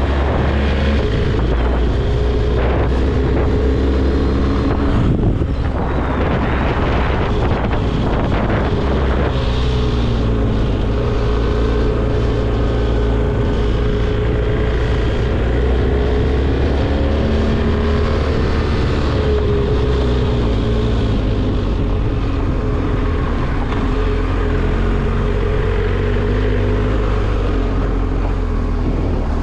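BMW R 1250 GS Adventure's boxer-twin engine running steadily at low road speed, its pitch rising and falling a few times with the throttle, with wind on the microphone.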